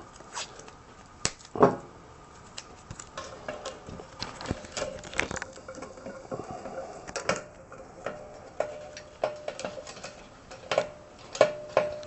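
Hands twisting together thin wires at a portable propane heater's valve: irregular light clicks and rustles of the wires and fittings being handled, a few sharper clicks among them.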